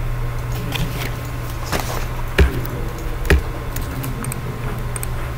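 A few computer mouse clicks, the two loudest about a second apart near the middle, over a steady low hum.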